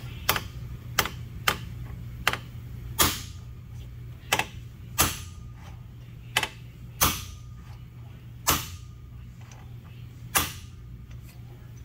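Sharp metal taps, about a dozen at irregular spacing, as a press-fit valve seat ring is started into its counterbored pocket in a cylinder head with a knurled driver tool, over a steady low machine hum.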